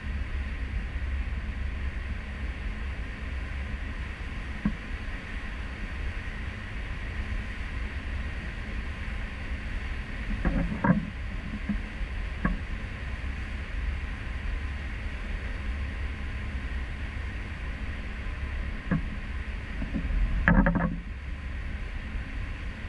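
Steady low rumble and wash of the Royal Caribbean cruise ship Serenade of the Seas underway, heard from an aft balcony: engine and propeller drone with the hiss of the wake. A few brief knocks or rattles come through it, the loudest cluster near the end.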